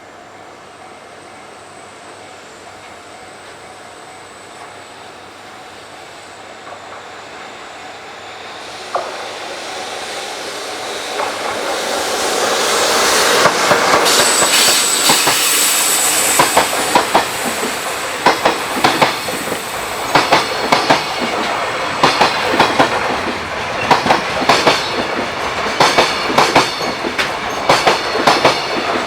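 JR Freight freight train approaching and passing, growing from a distant rumble to a loud close pass about halfway through, with a brief high wheel squeal. Its wagon wheels then clack over the rail joints in quick groups of clicks.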